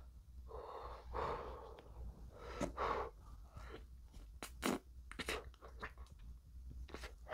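A person eating spoonfuls of ice cream: heavy breathing and mouth sounds, the breathing of a mouth still burning from very spicy noodles, with a few sharp clicks about four to five seconds in.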